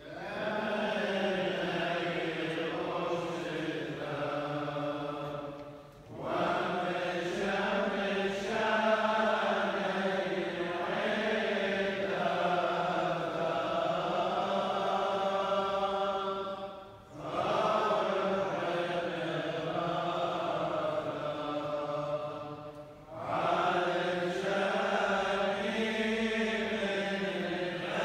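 Chaldean funeral prayers chanted by clergy, in long sung phrases broken three times by short pauses.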